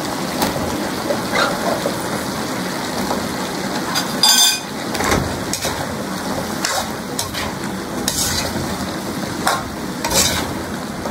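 Chicken, carrots and chayote sizzling in a metal wok while a metal ladle stirs them, with a steady frying hiss and scattered scrapes of the ladle against the pan. A little over four seconds in, the ladle strikes the wok with a ringing clank.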